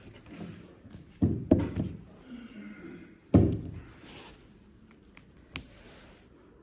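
Knocks and clicks from handling charging cables and their connectors: two thunks about a second in, a louder thunk just past the middle and a sharp click near the end.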